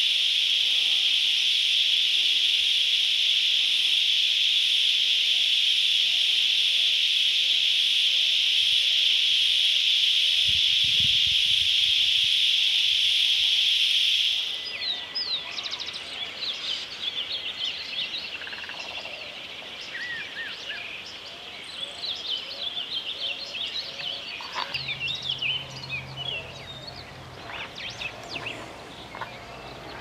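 A loud, steady, high-pitched insect drone, cicada-like, cuts off suddenly about halfway through. It is followed by a busy chorus of small birds chirping and calling.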